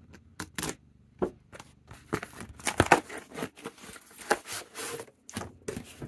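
Cardboard comic-book mailer being torn and pulled apart by hand: a run of irregular rips, scrapes and crinkles of cardboard and paper, the loudest burst about three seconds in.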